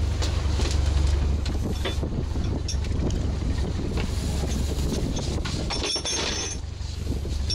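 Small fishing boat's engine running steadily, a deep hum, with wind on the microphone and scattered knocks from the metal trawl frame and rigging. About six seconds in there is a brief high squeal.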